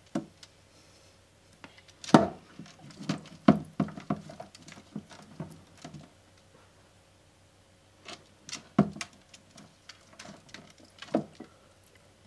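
Big-headed turtle's claws and shell knocking and scraping against the glass of its aquarium as it clambers: irregular clusters of taps and knocks, loudest about two seconds in and again near nine and eleven seconds.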